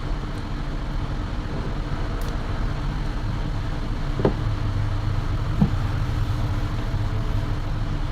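Steady low background rumble with a faint hum, and two light clicks of handling about four and five and a half seconds in.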